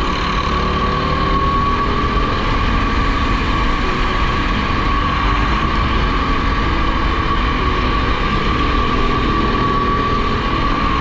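Go-kart engine running under steady throttle on the track: a held, slightly wavering whine over a low rumble of wind and tyres.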